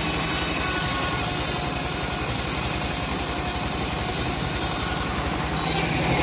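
Home-built bandsaw mill sawing through a teak log: the band blade hisses steadily through the wood over the rapid, even beat of the machine's running drive. The cutting hiss drops out for about half a second about five seconds in.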